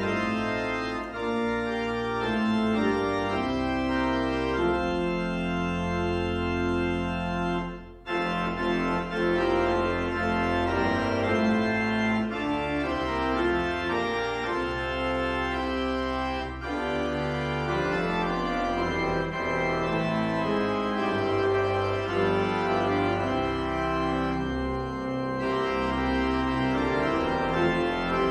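Organ postlude: sustained chords over deep pedal bass notes. There is a brief break about eight seconds in, then it carries on.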